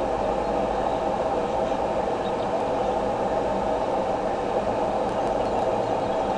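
Steady background noise with a constant low hum on the nest camera's live audio feed. No eagle or eaglet calls are heard.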